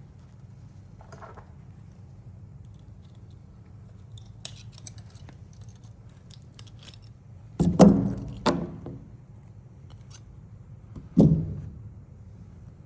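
Small metal clicks and scrapes as a 9-volt battery's metal casing is worked open with a tool, followed by three loud knocks that ring briefly. The last knock comes near the end.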